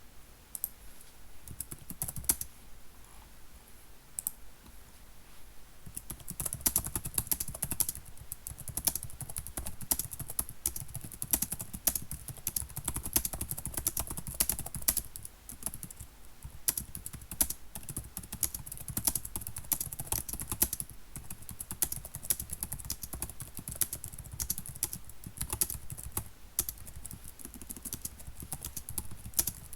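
Typing on a computer keyboard: rapid, irregular key clicks, sparse at first and then fast and continuous from about six seconds in, with a brief pause about halfway through.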